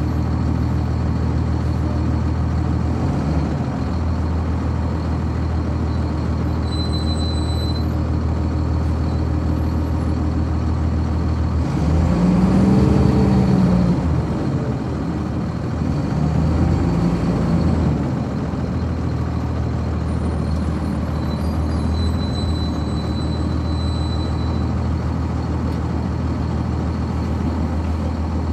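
Cummins ISC diesel engine of a 1999 Nova Bus RTS, heard from on board, running at a steady low note; about halfway through it revs up and back down twice in quick succession as the bus pulls off, then runs steadily again.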